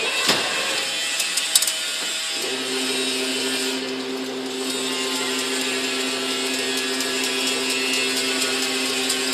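Fully automatic double-wire chain link fence machine running: a steady hum over mechanical rattling, with a couple of sharp clanks near the start. The hum drops out at the start and comes back about two and a half seconds in.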